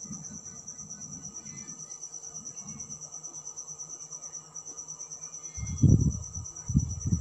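Crickets trilling steadily in a high, evenly pulsing drone. About five and a half seconds in, loud low muffled thumps come in over it.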